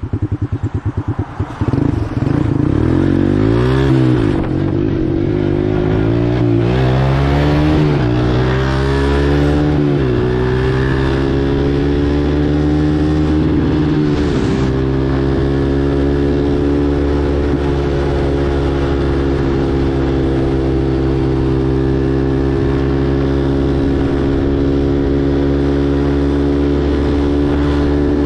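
Four-wheeler (ATV) engine under way. It pulses slowly for the first second or two, then its pitch climbs and drops several times as it picks up speed. Over the second half it holds a steady note at cruising speed.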